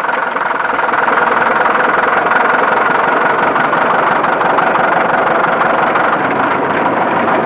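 McCormick-Deering TD-40 crawler tractor's four-cylinder diesel engine running steadily, heard on an old film soundtrack.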